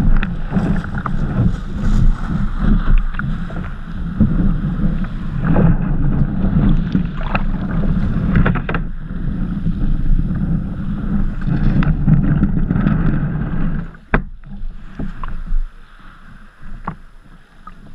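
Small shore surf sloshing and slapping against a sea kayak's hull, picked up by a camera on the bow deck as a dense low rumble with sharp splashes. It drops away about fourteen seconds in as the kayak reaches calmer water.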